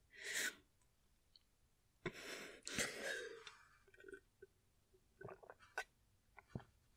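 A woman drinking from a jar, close up. A quick breath comes just after the start and a longer breathy draw about two seconds in. After that come scattered small gulping and swallowing clicks.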